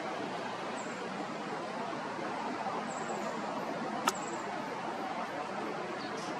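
Steady outdoor background noise, an even hiss-like hum with no clear source, with one sharp click about four seconds in and a few faint short high chirps.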